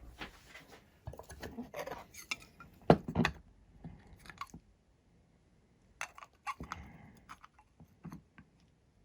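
Small hard parts and tools clicking, clinking and knocking during hand assembly of a drone frame, with a louder double knock about three seconds in, a short pause, then more light clicks.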